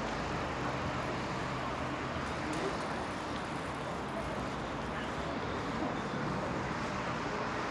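Steady town street ambience of road traffic.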